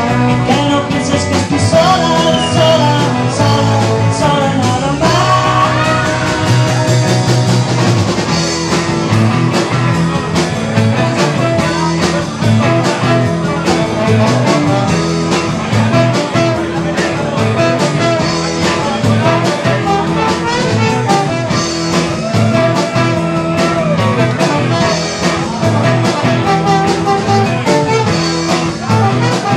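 Live 1960s-style rock and roll band playing an instrumental passage: trombone leading over electric guitars and drums with a steady beat.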